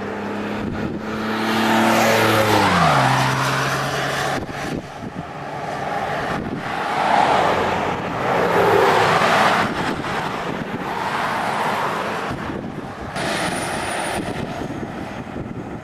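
Strong wind buffeting the microphone in repeated gusts that swell and fade. Near the start a vehicle engine hums, its pitch dropping steeply about two to three seconds in.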